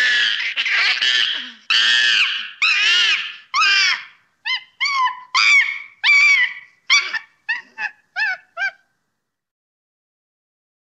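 Macaque screaming: a run of high, arching shrieks, packed together at first, then breaking into short separate calls about twice a second that stop about nine seconds in.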